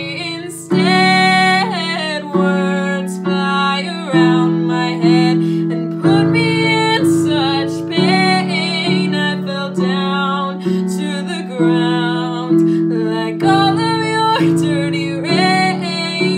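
A woman singing a song over strummed guitar chords, a chord struck about once a second.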